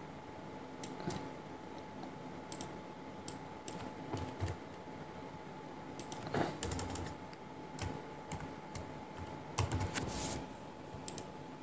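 Faint, scattered keystrokes and clicks on a computer keyboard, coming in irregular clusters as a name and value are typed.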